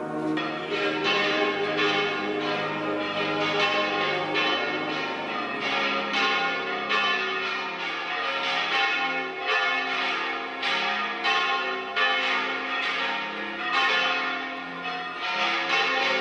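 Church bells ringing a peal: several bells of different pitch struck one after another in a steady run of strokes, each left to ring on.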